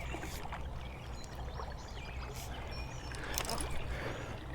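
Water splashing and sloshing over a steady low hum, with a few small knocks about three and a half seconds in.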